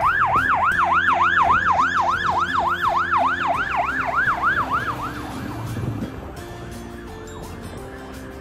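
Fire engine siren on yelp: a rapid rising-and-falling wail, about three sweeps a second, fading out about five seconds in as the truck drives off.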